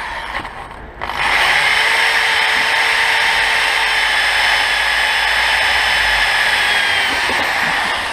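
Handheld power tool running steadily for about seven seconds. It starts about a second in and eases off near the end.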